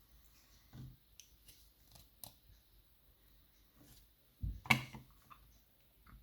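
Small clicks and taps from handling a pin-tumbler lock and its parts while it is being shimmed apart, with one louder knock and clack a little past the middle.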